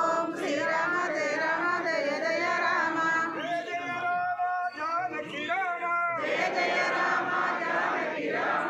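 A group of voices singing a devotional chant to Rama in held, gliding notes, over crowd noise. The singing breaks off briefly about six seconds in, then comes back noisier.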